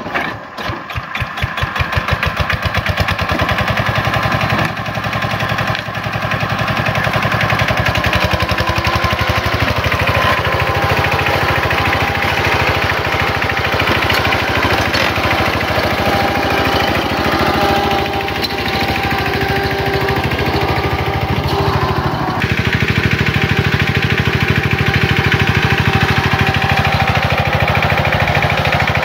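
Kubota K75 hand tractor's single-cylinder diesel catching and picking up speed over the first couple of seconds, then running steadily with an even, rapid beat. Its note changes about 22 seconds in.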